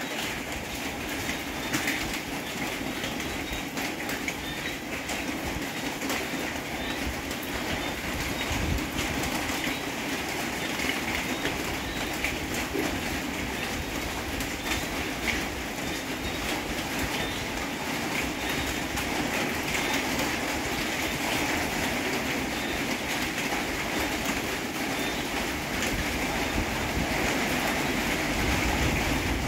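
Steady rain falling, a continuous hiss full of small drop ticks.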